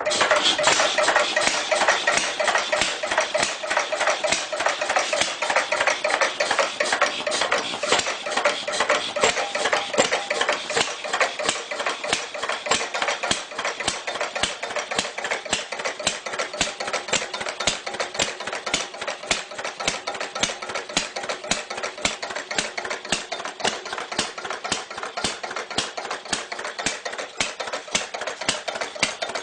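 A clunky old engine idling, with a rapid, even knocking beat. It is a little louder for roughly the first ten seconds, then settles.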